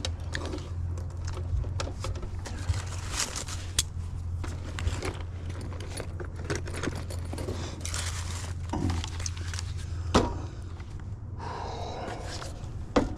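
Small metal tools and parts clinking, jingling and scraping as they are handled, over a steady low hum.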